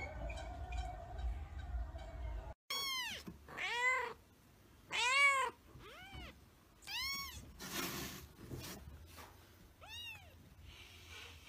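Domestic cat meowing: about five short, arching meows spread over several seconds, the middle one the loudest, with a rustle between them. Before them, a steady hum runs until a sudden cut.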